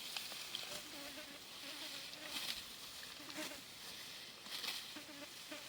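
An insect buzzing in short, wavering passes, with soft hissy rustling now and then.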